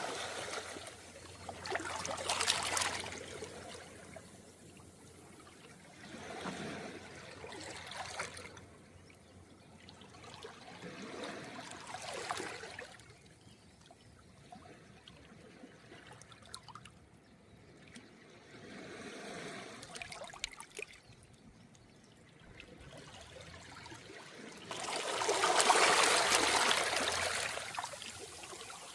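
Small, calm waves washing in over a round-pebble beach, each swell rising and drawing back every few seconds, with the largest surge near the end.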